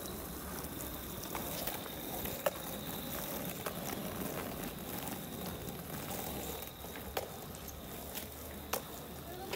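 Skateboard wheels rolling on wet asphalt: a steady rolling noise with a few sharp clicks.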